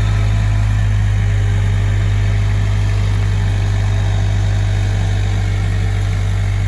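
Skid steer engine running steadily at a constant throttle, a loud, even drone.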